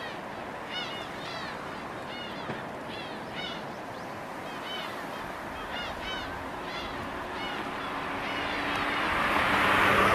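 Crows cawing repeatedly, a string of short arched calls, over a steady rushing noise that swells near the end.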